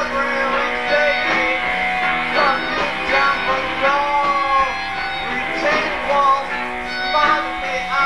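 Live band music with plucked guitar.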